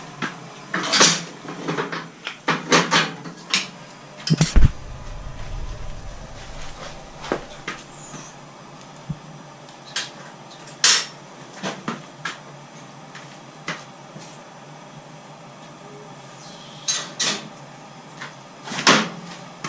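Metal hand tools and motorcycle parts clinking and clanking in scattered knocks during chain and sprocket work, with one heavier thud about four and a half seconds in.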